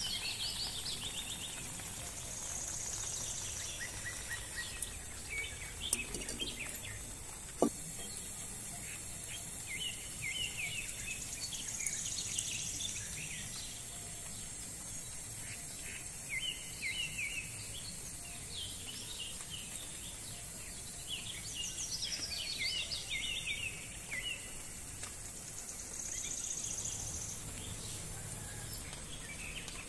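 Many small birds chirping and twittering over a steady high hiss, with a single sharp click about eight seconds in.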